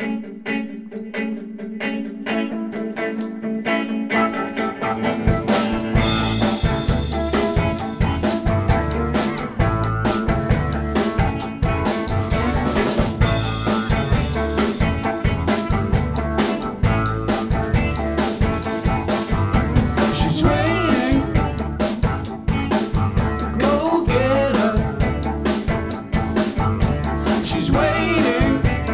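An R&B band playing live. A guitar figure plays alone at first, then drum kit and bass come in about four to five seconds in and the full band settles into a steady groove. A singer's voice joins in the last third.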